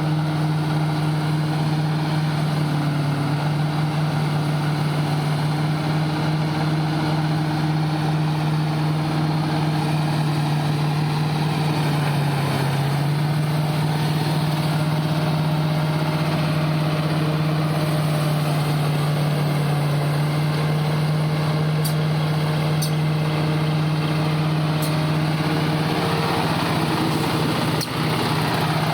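Silage round baler and bale wrapper running with a steady mechanical hum. A few sharp clicks come in the last third.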